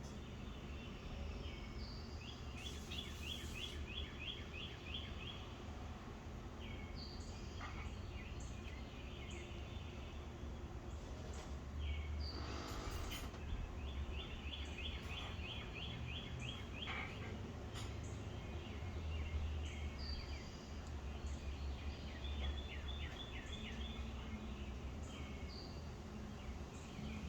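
Songbirds chirping outdoors. Three times a bird gives a rapid run of about ten evenly repeated notes, and scattered shorter calls come in between, all over a steady low background rumble.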